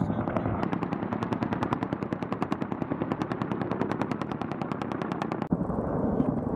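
AH-1Z Viper attack helicopter making a rapid, even train of sharp pulses for about five seconds, cutting off abruptly near the end. The pulses are followed by a steady rumble.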